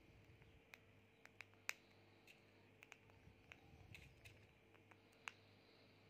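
Cockatiel husking and pecking seeds from a plastic dish: faint, irregular sharp clicks, about a dozen, the loudest about a second and a half in, over a faint steady hum.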